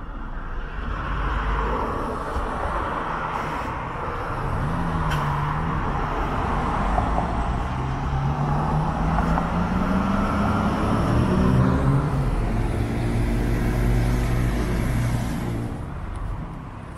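Articulated Mercedes-Benz Citaro city bus pulling away from a stop. Its diesel engine note rises as it accelerates, dips briefly as a gear changes, climbs again, then holds steady as the bus passes, with road and tyre noise under it. The sound falls away near the end.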